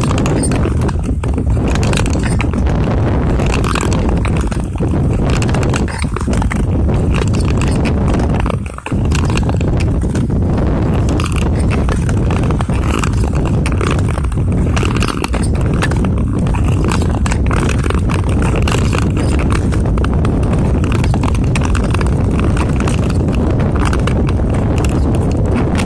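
Skating on clear lake ice: a steady, loud rushing noise, with many short scrapes and clicks of the skate blades on the ice.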